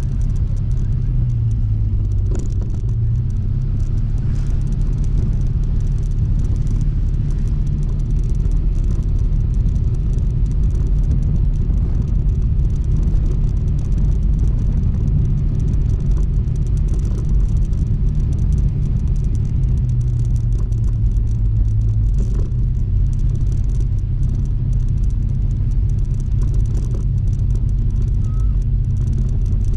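Honda ADV160 scooter's single-cylinder engine running steadily while riding, a continuous low rumble.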